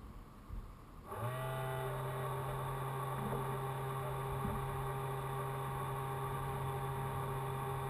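An engine starts about a second in and runs on at a steady, even pitch.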